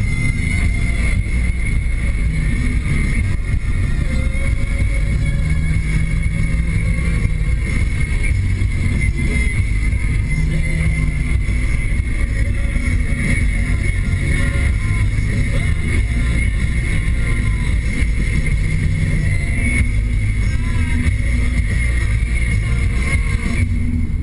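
Inside a 2013 Nissan Sentra SR driving at road speed: a steady low rumble of road, tyre and engine noise, with a thin, steady high whine over it.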